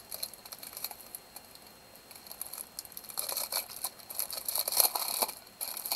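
Plastic packaging of a rolled diamond painting kit crinkling and rustling as it is handled. Faint at first, it becomes louder and crackly from about halfway through.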